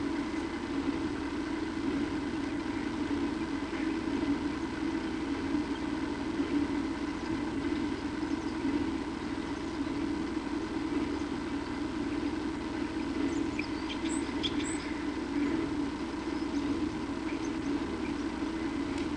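Steady background hum that runs without a break. About 14 seconds in there are a few faint, short, high clicks.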